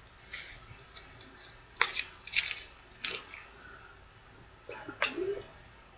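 Chewing a piece of teriyaki beef jerky: quiet, scattered short crisp clicks and smacks with pauses between them.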